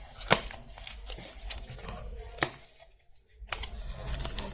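Cardboard packaging of a power bank being handled and opened by hand: scattered light clicks and taps, two of them louder, with a short near-silent gap about three seconds in.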